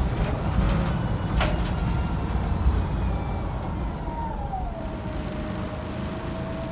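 Wright Pulsar 2 single-deck bus heard from inside, its diesel engine and drivetrain running with a low rumble as it slows. A whine falls in pitch about four seconds in and then holds steady, with a single sharp click about a second and a half in.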